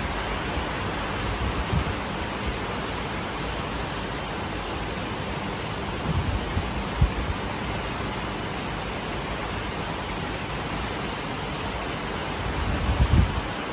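Heavy downpour, a steady rush of rain, with a few brief low rumbles: about two seconds in, around six to seven seconds, and a stronger one near the end.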